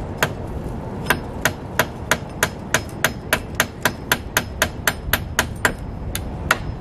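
Hammer driving a nail with quick, even blows, about three a second, with a short pause near the start and a last single blow near the end.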